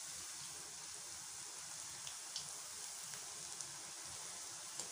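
Fish kola balls deep-frying in hot oil: a steady sizzle with a few faint pops.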